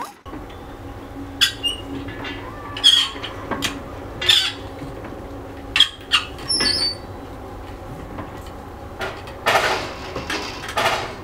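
Hand-cranked wheel and cable winch of a manual railway level-crossing gate squeaking as it is turned to move the barrier, with a squeak about every second and a half. There is a longer scraping noise near the end.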